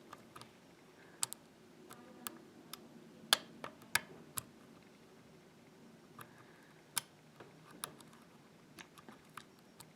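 Lock pick working the pins of a euro cylinder lock under very light tension: a dozen or so faint, sharp metallic clicks and ticks at irregular intervals, bunched in the first half, as the hook probes the pins and serrated pins catch.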